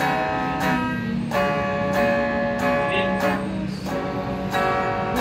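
Electric guitar (a Squier Telecaster) played through a Marshall MS-2R mini amp, strumming chords that ring on, a new chord struck every half second or so.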